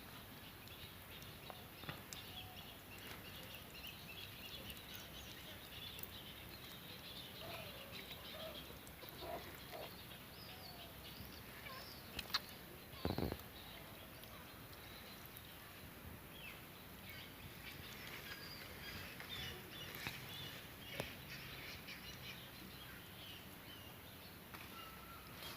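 Faint outdoor background with scattered bird chirps, and a couple of short sharp knocks about halfway through.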